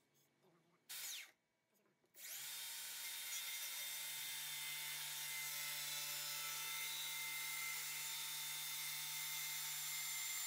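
Makita cordless circular saw starting up about two seconds in and running steadily as its blade cuts through an MDF board, a high whine over the cutting noise. A brief noise comes before it, about a second in.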